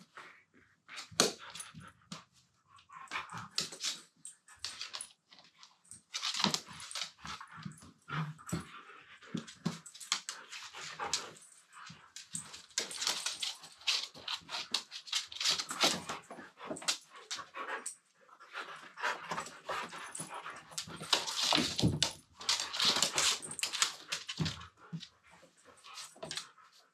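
Two Siberian huskies play-wrestling: scuffling and rustling in uneven bouts, mixed with the dogs' play vocalizations.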